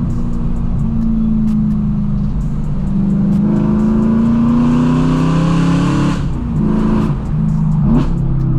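Straight-piped 4.0-litre S65 V8 of a BMW E92 M3, heard from the driver's seat, pulling through a gear with its revs climbing steadily for several seconds. About six seconds in the revs drop sharply, and near the end there is a short, quick rise in revs.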